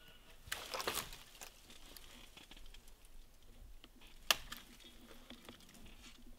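Clothing and gear rustling as people shift about in a hunting blind, loudest for about a second starting half a second in, with one sharp click about four seconds in and a few faint ticks.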